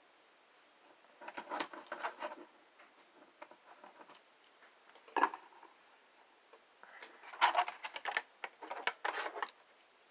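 Plastic clicks and rattles from a Transformers action figure and its packaging being handled: a short flurry of clicks, a single sharp click, then a longer, denser flurry near the end.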